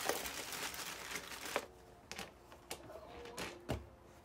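Crinkling and rustling for about a second and a half, then four or five light clicks and knocks as round caps are handled and fitted onto the hard plastic base of a free-standing punching bag.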